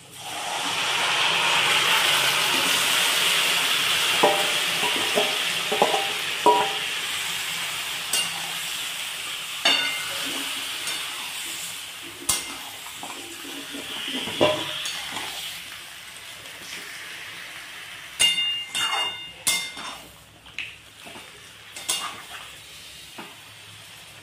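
Marinated chicken pieces dropped into hot mustard oil and fried onions in a steel kadai: a loud sizzle that starts suddenly and slowly dies down. A steel spatula scrapes and clinks against the pan as the chicken is stirred, with a cluster of sharp clinks near the end.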